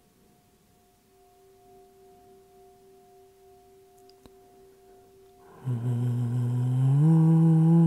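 A faint singing-bowl tone rings steadily, with a small click a little after four seconds in. Near the end a loud, low hummed drone begins and steps up in pitch after about a second and a half.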